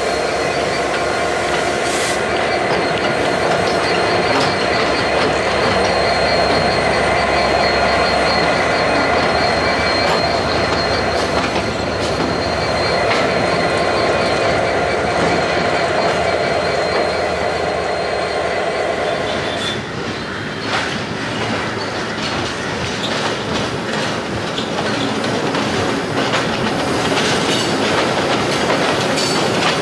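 Sri Lanka Railways Class M11 diesel locomotive running light past, its engine running steadily while its wheels click over the rail joints, with a thin steady high tone over it. About two-thirds through, the sound changes abruptly to a Class M8 diesel locomotive running light, its engine and wheels clicking on the track.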